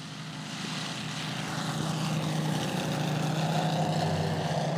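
Three Moki five-cylinder four-stroke radial engines of a giant RC Junkers Ju 52 model, with their propellers, running together on takeoff. They grow steadily louder over the first two seconds as the plane approaches and lifts off, then hold a steady drone.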